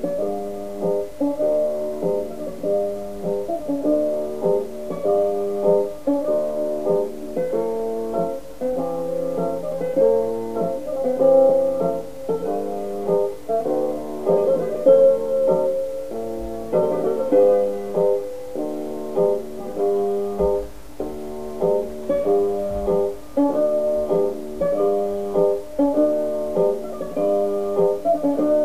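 Instrumental background music with a steady, repeating pattern of notes.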